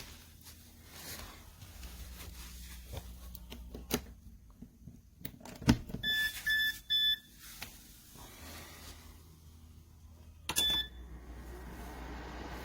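Control-panel beeps from a Honeywell ceramic tower heater: three short beeps about six seconds in and one more about ten and a half seconds in, among handling clicks over a low hum. Near the end an even blowing noise from the heater's fan rises.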